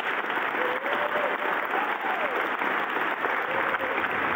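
Audience applauding, steady and sustained, with a few faint voices among the clapping.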